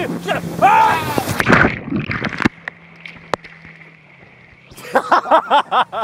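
Riders on an inflatable banana boat yelling over rushing water and wind noise; about two and a half seconds in the noise drops suddenly to quieter water sounds with a faint steady hum, and near the end comes a quick run of short shouts.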